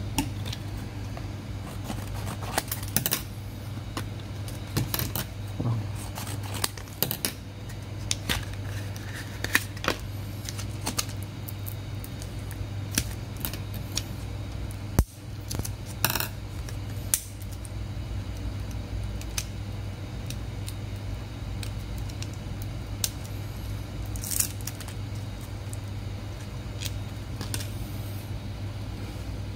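Scissors cutting open a microSD card's blister pack, with the card and plastic packaging handled: scattered snips, crinkles and clicks, one sharper click about halfway, over a steady low hum.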